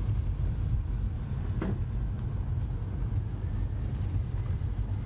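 A car driving: a steady low rumble of road and engine noise, with one brief click about a second and a half in.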